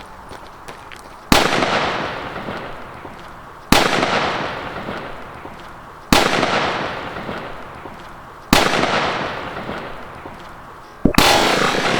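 Five loud explosive bangs, evenly spaced about two and a half seconds apart, each dying away in a long echo; the last one comes as a quick double bang.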